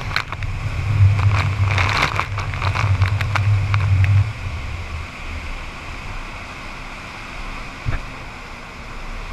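Engine of a watercraft towing a tube at speed, running under a rush of churning wake water and wind gusting on the microphone. It is loudest for the first four seconds and then eases to a lower, steadier rumble, with one short knock near the end.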